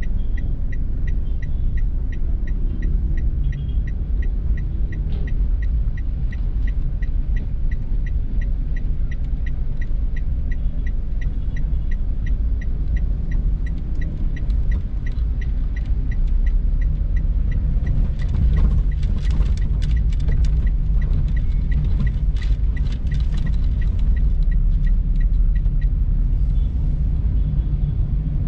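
Car driving in the rain: a steady low rumble of engine and road. Over it, a light regular ticking about twice a second stops near the end, and a spell of crackling clicks comes in the later part.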